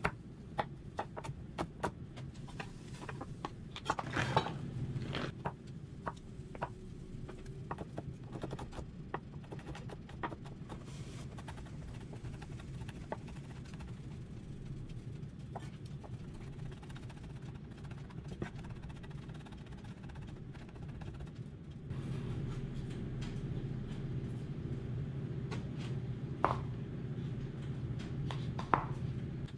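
Chef's knife chopping a vegetable on a wooden cutting board: irregular sharp knocks of the blade on the wood, a few louder ones about four seconds in. Under them runs a steady low hum that grows louder about three-quarters of the way through.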